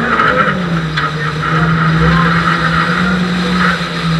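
Renault Clio RS rally car's four-cylinder engine heard from inside the cabin, running hard at steady high revs that ease slightly about half a second in and then hold, over a steady hiss of tyres on gravel.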